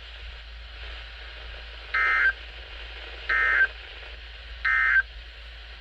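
Emergency Alert System end-of-message signal: three short, buzzy digital data bursts, each about a third of a second long and a little over a second apart, marking the end of the special marine warning. Beneath them is a steady radio hiss.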